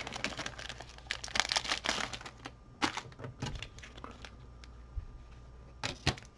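Plastic card sleeves crinkling and hard plastic card holders clicking as a stack of trading cards is handled and sorted, with irregular small taps and a few sharper clicks, one near the end as a holder is set down on the desk.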